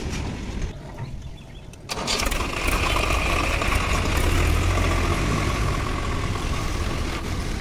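Diesel tractor engine close by starting up about two seconds in, then running steadily with a deep rumble as the tractor moves off over the level crossing.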